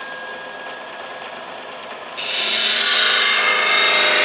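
DC bench grinder running with a steady motor hum and faint whine. About two seconds in, a long steel piece is pressed against the spinning wheel and a much louder, steady grinding hiss begins.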